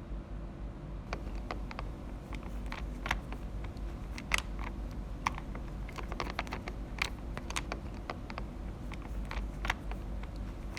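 Typing on a keyboard: irregular key clicks of uneven strength, starting about a second in.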